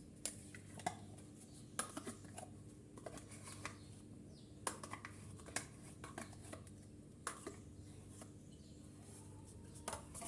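Faint, scattered clinks and taps of kitchen utensils against a mixing bowl, a few each second at most, over a steady low hum.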